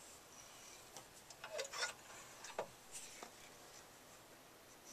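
A quick cluster of faint clicks and knocks from a vintage Automatic Electric pay phone's black handset being handled, bunched together between about one and three seconds in.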